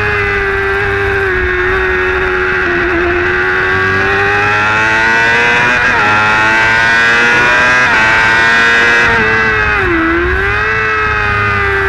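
Racing motorcycle engine at high revs under full throttle, its pitch climbing steadily as the bike accelerates down a straight, then dipping sharply and recovering about ten seconds in as the throttle is briefly closed. Wind rush on the microphone underneath.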